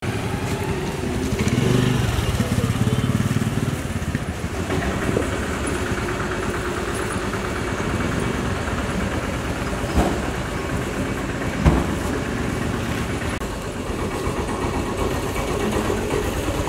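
Street traffic noise with a motorcycle engine passing close by about two seconds in, and two short knocks about a second and a half apart past the middle.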